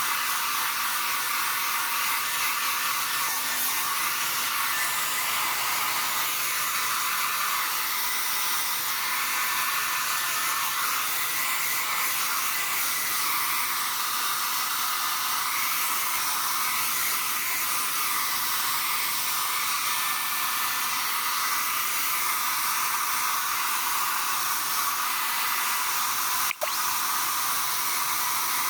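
Electric air blower running steadily: a continuous rush of air with a faint motor whine, interrupted once by a brief click near the end.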